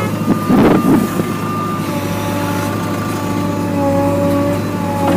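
JCB 3DX backhoe loader's diesel engine running steadily, with a brief loud rush about half a second in as the bucket empties its load of soil into a tractor trailer.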